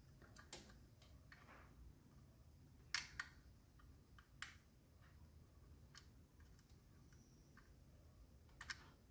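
Scattered small plastic clicks and taps as an optical (Toslink) cable plug is worked into a digital-to-analog audio converter's input, a stiff fit. The sharpest clicks come about three and four and a half seconds in; between them it is near silence.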